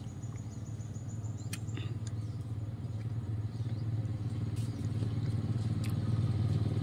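A motor vehicle's engine running steadily at an even pitch, slowly growing louder, with a few faint clicks over it.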